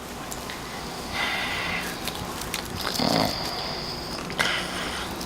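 A sleeping man snoring: a rough breath about a second in and a louder, pitched snore about three seconds in.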